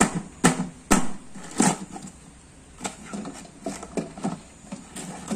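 Fingers jab at and tear through a printed paper sheet, giving sharp taps and tearing crackles: three loud strikes within the first two seconds, then smaller crinkles and pops.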